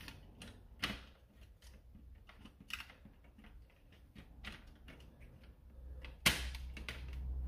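Scattered small clicks and taps of plastic blaster parts being handled as the plunger assembly with its metal tube is fitted and lined up in the open shell of an X-Shot Longshot foam blaster, with one louder knock a little after six seconds in.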